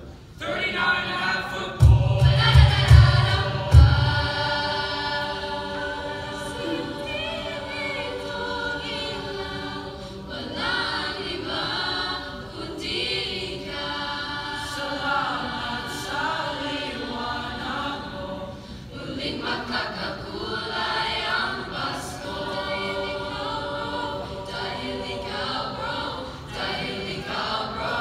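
A mixed youth choir singing a Christmas carol together. A few heavy low thumps come through about two to four seconds in.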